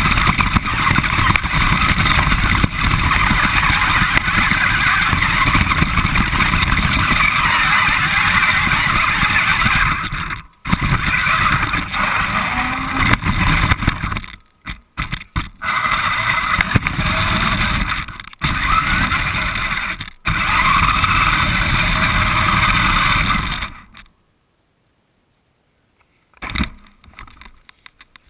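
Radio-controlled car's motor and drivetrain running loud and close, heard from a camera mounted on the car itself, with a whine that rises and falls in pitch. It drives in several spurts with short stops, then cuts off about four seconds before the end.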